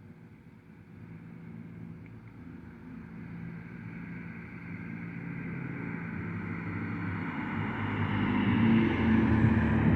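A car approaching on the road, its engine and tyre noise growing steadily louder and peaking as it passes near the end.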